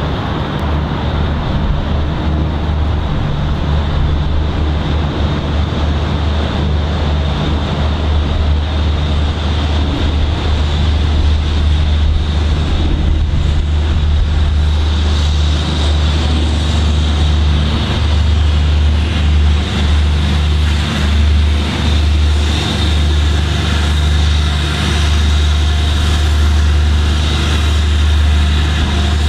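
BR Standard Britannia Class 4-6-2 steam locomotive pulling away from a station stop: steam hissing over a constant low rumble, with regular exhaust beats coming through from about halfway in as it gets moving.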